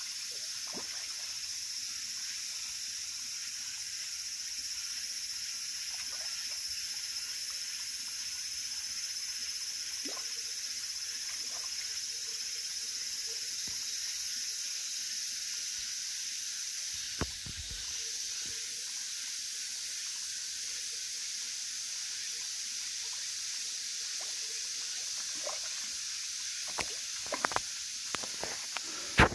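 Koi splashing and plopping at the surface of a pond now and then, the splashes coming more often and loudest near the end, over a steady high-pitched hiss.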